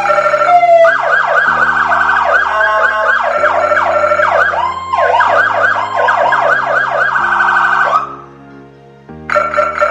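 Whelen HHS3200 electronic siren cycling through tones: a falling wail at the start, then rapid rising yelp-like sweeps several times a second with one slower rise in the middle. It cuts off abruptly about eight seconds in and starts again just before the end, over steady backing music chords.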